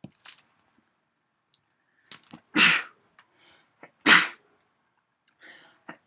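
A person sneezing twice, the first about two and a half seconds in and the second about a second and a half later, each burst short and loud with a small intake of breath just before it.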